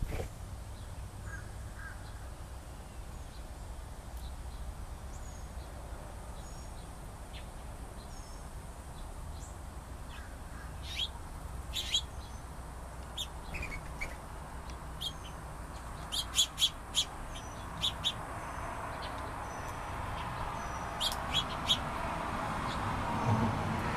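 Small songbirds calling: scattered short, high chirps, with sharper chip calls in quick clusters of two to four. A rushing noise builds over the last several seconds.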